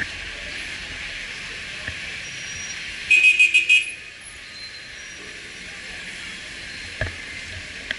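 Steady street traffic noise from cars and buses passing slowly. About three seconds in comes a short run of rapid, loud, high beeps, and a single thump sounds near the end.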